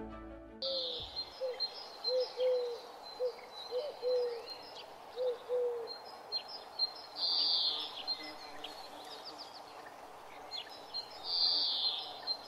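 Birds calling outdoors: a run of short, low, curved notes repeated in small groups during the first half, with scattered higher chirps and twitters throughout.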